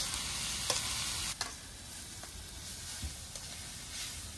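Vegetables stir-frying in a pan: a steady sizzle, with the spatula clacking and scraping against the pan a couple of times in the first second and a half.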